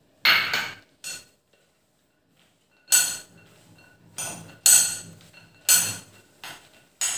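Metal spoon stirring spice-coated raw peanuts and crushed garlic in a glass bowl: a series of separate clinks and scrapes against the glass, about eight in all, a few with a brief ring.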